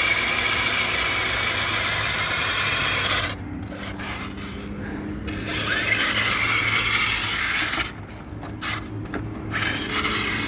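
Electric RC truck driven at full throttle up a dirt hill: a high motor whine over its tyres scrabbling and rasping in the dirt. It comes in two bursts, the first cutting off about three seconds in and the second near the middle, and is followed by a few short knocks and scrapes.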